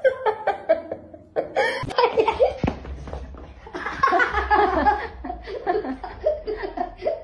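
A person laughing hard in repeated short bursts, with a brief break about two seconds in before the laughter goes on.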